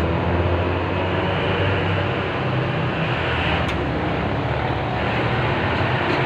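Steady low rumbling background noise with a hiss over it and no clear rhythm.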